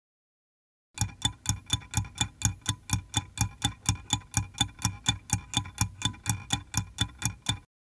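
Stopwatch ticking sound effect: a steady run of even, sharp ticks, about three and a half a second, starting about a second in and stopping just before the end, timing down a countdown.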